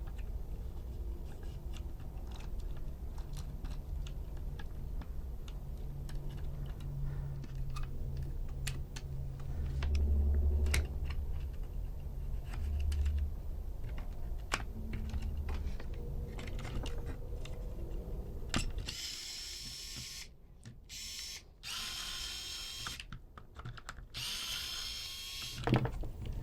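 Hand work with small tools on an RC toy truck's circuit board during desoldering: many small clicks and taps over a low hum. About 19 s in come several short hissing bursts.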